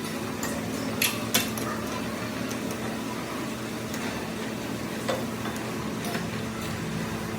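A machine running with a steady hum, with a few sharp metal clinks: two close together about a second in and a lighter one near five seconds.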